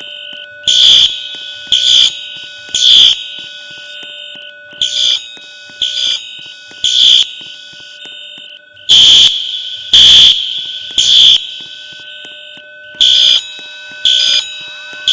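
Fire alarm sounding loud, high-pitched beeps in groups of three, about a second apart, with a pause of about two seconds between groups: the temporal-three evacuation pattern.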